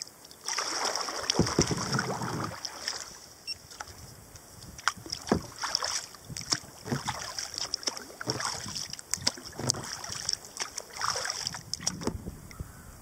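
Sea kayak being paddled: repeated paddle strokes swishing and splashing through calm creek water, with drips and small splashes off the blade. The strokes are heaviest in the first couple of seconds.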